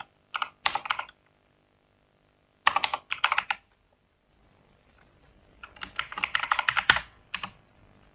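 Computer keyboard typing in three short runs of rapid keystrokes: one near the start, one about three seconds in, and a longer run in the second half that holds one louder key press.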